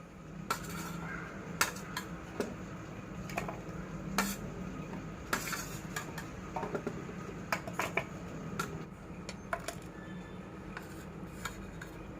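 Kitchenware clinking and knocking: a dozen or more short, irregular clinks of dishes and utensils being handled, over a steady low hum.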